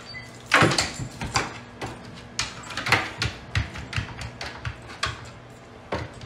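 Irregular knocks and clatter of a hinged wooden flap and cabinet being handled as a dog climbs up into it, over a low steady hum. A food bowl is set down on the board near the end.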